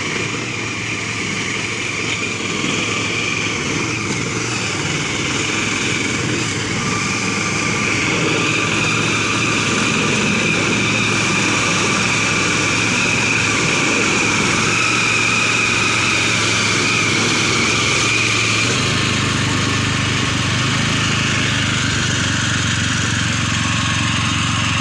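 Two-wheel hand tractor's small single-cylinder engine running steadily under load as it tills a flooded rice paddy, growing louder from about eight seconds in.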